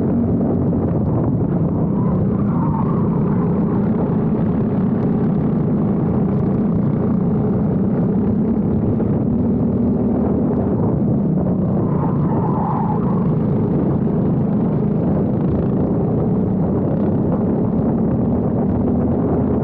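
Briggs & Stratton four-stroke single-cylinder kart engine running at steady high revs on track.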